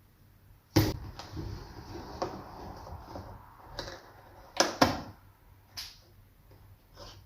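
A product box being handled and opened: a series of sharp knocks and taps, the loudest about a second in and two close together near the middle, with rustling between them.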